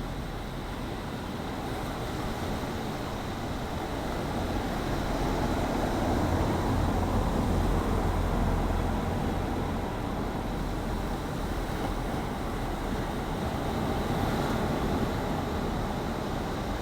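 Sea waves washing and rushing, a steady noise with a deep rumble that swells to its loudest around the middle and eases off again.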